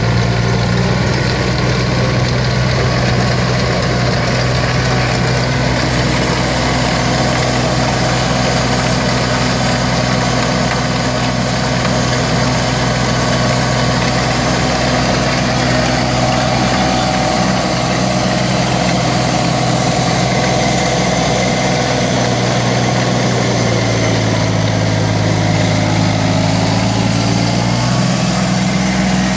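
Kioti CK35 compact tractor's diesel engine running steadily at working revs, powering a tractor-mounted chain trencher cutting through soil. Late on, the engine note drops for a few seconds, then rises again.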